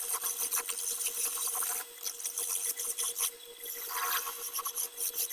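Hand-held turning tool scraping a spinning wooden spindle on a belt-driven wood lathe: a dry rasping in long stretches that eases off briefly about two seconds in and again just past three seconds. A steady hum runs under it throughout.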